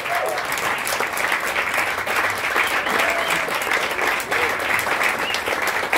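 Small audience clapping steadily and densely.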